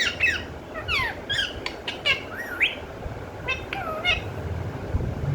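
Pet parrot calling: a series of short chirps and squawks, most sweeping down in pitch and one rising, with a last cluster about three and a half to four seconds in.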